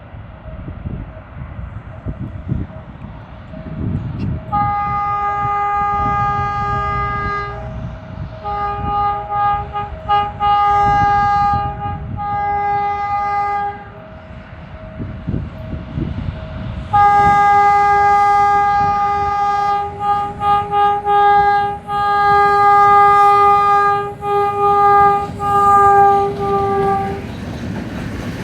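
Air horn of an LDE2100 diesel-electric locomotive sounding a long series of blasts: one of about three seconds, a run of shorter broken toots, then a longer stretch of repeated blasts, over the low rumble of the moving train.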